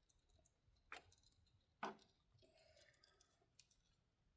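Near silence with a few faint, sharp clicks, two of them about a second apart, from a small metal pick prying at a hardened rubber O-ring.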